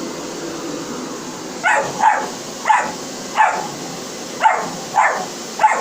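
Vacuum cleaner running with a steady hum; about one and a half seconds in, a dog starts barking over it, seven short barks about half a second to a second apart.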